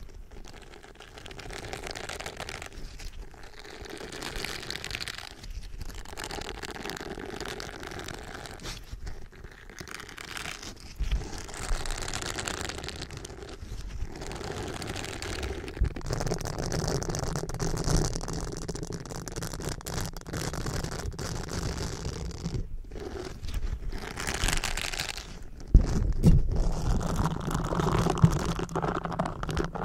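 A silicone pad rubbed and pressed against a microphone's metal grille, giving an uneven run of close, scratchy, crunchy rubbing strokes. The strokes grow heavier and deeper in the second half.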